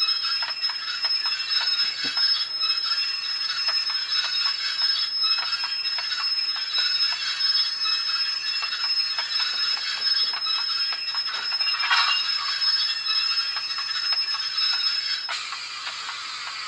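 Soundtraxx Tsunami SoundCar decoder's simulated railroad-car sound through a small model speaker: a steady high brake squeal over rail-joint clicks as the car rolls with its brakes applied. About 15 seconds in the squeal stops and a steady hiss takes over.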